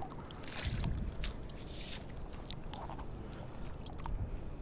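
Water sloshing and splashing, with two short splashy swells in the first two seconds and a few small clicks and knocks.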